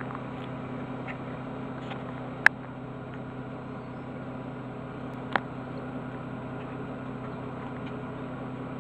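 Car running with a steady low hum, heard from inside the cabin; two sharp clicks stand out about two and a half and five and a half seconds in.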